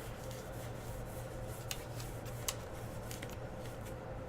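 Baseball trading cards being handled and slid against one another, a soft rubbing with two or three light clicks, over a steady low background hum.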